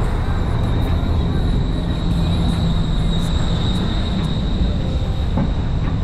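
Steady low rumble of a motor vehicle running on the road, with a faint steady high whine over it.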